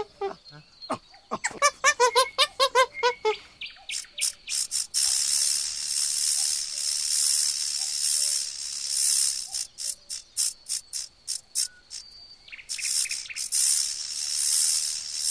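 A quick series of short, pitched animal calls for the first few seconds, then a loud, high insect chorus that swells and fades about once a second, breaking off briefly near twelve seconds in before starting again.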